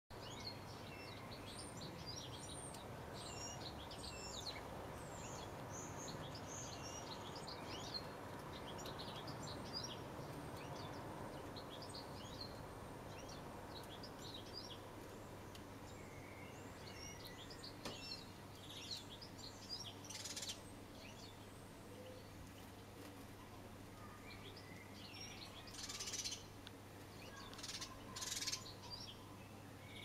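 Small songbirds chirping and twittering over and over with short high calls, over a steady low hum. A few brief noisy bursts come in the last third, the loudest near the end.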